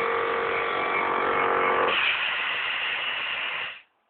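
Small air compressor running with a steady buzz, pumping up a home-made compressed-air rifle. About two seconds in the hum gives way to a brighter hiss, and the sound cuts off suddenly near the end.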